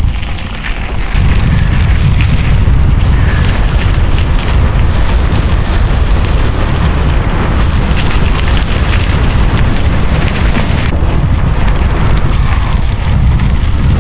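Wind buffeting the microphone and a mountain bike rumbling as it rolls fast downhill on a dirt trail. The low rumble gets louder about a second in and then holds steady.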